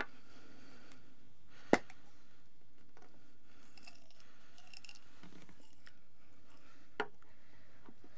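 A person chewing and crunching something close to the microphone, with a few sharp clicks; the loudest comes about two seconds in and another near seven seconds.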